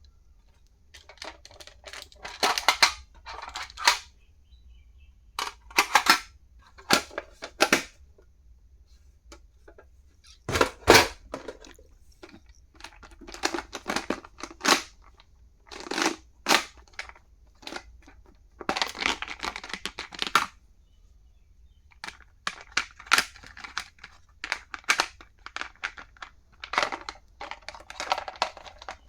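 Stationery being unboxed and handled: packaging crinkling and tearing, with sharp clicks and taps of plastic items, in short bursts with pauses between them.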